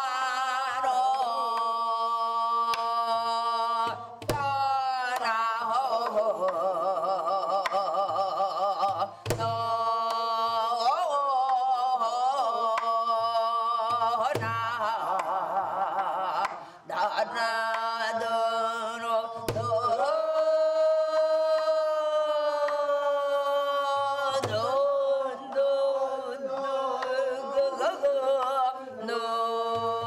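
Korean traditional music: a high voice singing a slow melody with wide, wavering vibrato over a steady drone, with a low drum stroke about every five seconds.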